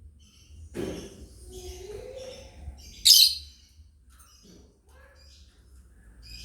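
Lovebirds chirping in short clusters of high calls, with one much louder high chirp about three seconds in.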